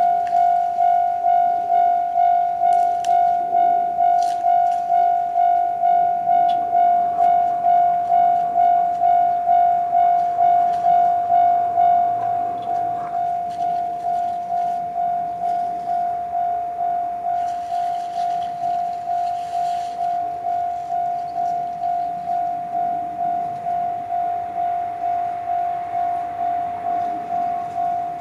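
Japanese railway level-crossing warning alarm ringing its repeated 'kan-kan' tone, about two strikes a second. It starts suddenly and becomes a little quieter after about twelve seconds.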